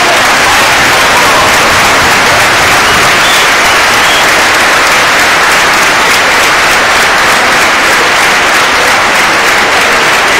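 Large stadium crowd applauding, a steady unbroken ovation.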